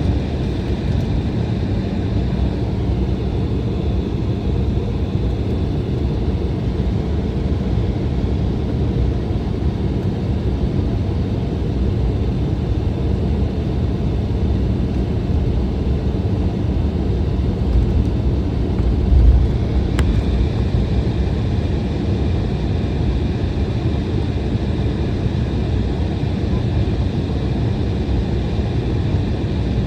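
Steady cabin noise inside an Embraer E175 airliner on the ground between pushback and takeoff, with its GE CF34 turbofan engines running. The noise is a low rumble with a faint steady hum; there is a brief low bump about 19 seconds in and a short click just after.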